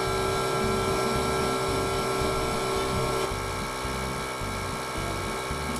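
SnowJoe iONAir battery-powered cordless air compressor running steadily with a low pulsing beat, near the end of filling its tank to 115 PSI.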